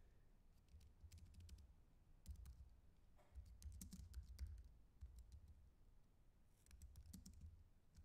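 Faint typing on a computer keyboard: quick runs of key clicks in several separate bursts with short pauses between them.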